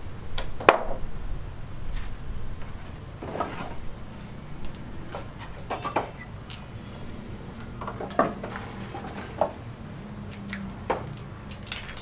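Scattered sharp knocks and clanks of hard objects, about seven over the stretch and the first the loudest, over a low steady hum.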